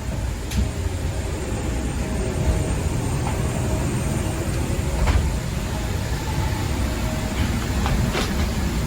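Steady low rumble and hiss of airport and aircraft machinery on the walk down the jet bridge, with a faint steady hum and a few light knocks.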